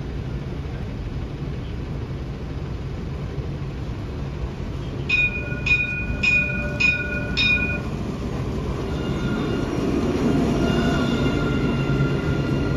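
A low-floor tram pulling into a stop. About five seconds in, its warning bell rings five times in quick succession. The tram's rumble then grows, with a high steady whine from the wheels, as the car rolls alongside the platform.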